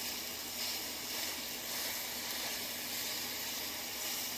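Chicken breasts sizzling steadily in a hot cast iron grill pan.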